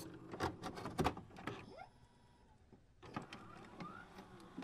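Faint scattered clicks and short sliding tones of a glitch-style transition sound effect, with a nearly silent gap in the middle.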